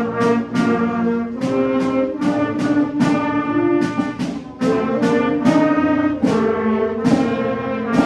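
School brass ensemble playing sustained chords, trumpets and trombones over low brass, with clear note attacks two or three times a second.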